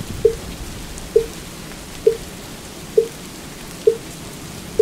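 Wooden fish (mu yu) struck in a slow, even beat, a little faster than once a second, each knock short and at the same pitch, over a steady patter of rain falling on water.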